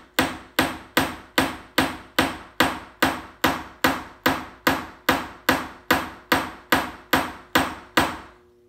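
A ball peen hammer taps steadily on a steel punch, about twenty strikes at two and a half a second, each with a short metallic ring, stopping just before the end. The punch is flaring the end of a sterling silver tube rivet set through a drilled pebble.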